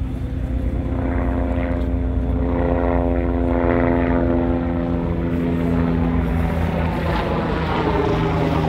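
Helicopter flying overhead, its rotor sound growing louder about a second in and then sinking slowly in pitch as it passes. Under it runs the low steady hum of a catamaran ferry's engines.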